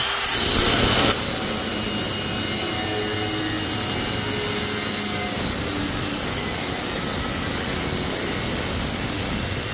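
Milwaukee M18 Fuel cordless angle grinder with a thin cut-off wheel cutting through stainless steel sheet: a steady, even grinding noise, loudest and brightest for about the first second.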